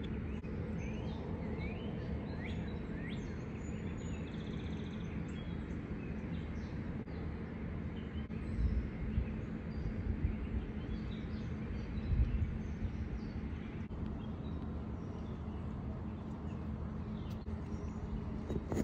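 Outdoor ambience: a steady low rumble with a few short bird chirps in the first few seconds, and a few low thumps in the middle.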